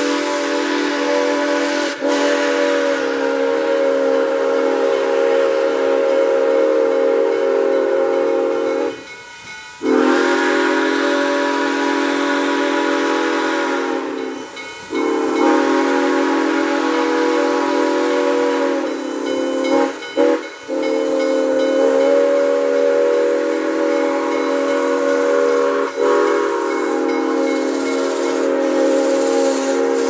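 New York Central six-chime steam whistle on Western Maryland 1309 blowing about four long blasts, a chord of several steady notes, with short breaks between them. Steam hiss runs underneath.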